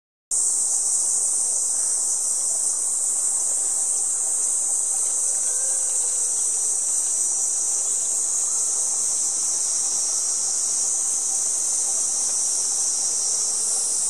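Cicadas in the park trees singing in a steady, unbroken, high-pitched buzz.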